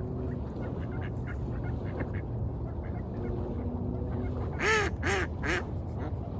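A duck quacking three times in quick succession near the end, over a steady low rumble of waves and wind.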